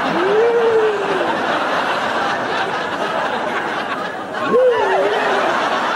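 An audience murmuring and laughing, with wordless voice sounds rising and falling in pitch, once at the start and again about four and a half seconds in.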